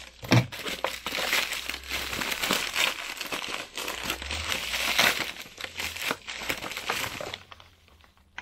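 Plastic courier mailer bag crinkling and rustling with many small crackles as it is opened and a box is pulled out of it, stopping about seven and a half seconds in. There is a thump just after the start.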